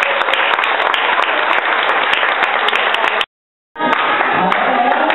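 A crowd of party guests clapping, with voices mixed in. The sound drops out completely for about half a second a little past three seconds in, then the clapping and voices resume.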